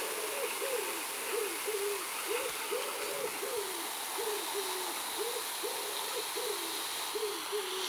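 Pigeon cooing, a continuous run of low, rolling coos repeated about twice a second.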